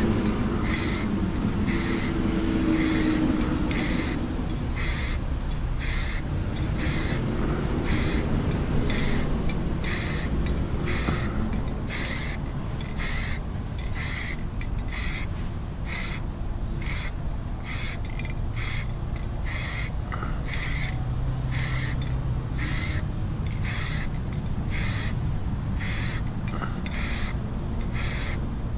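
Third coat of black paint being applied to a bass boat in quick, even strokes: a hissing rasp about three times every two seconds, over a low rumble.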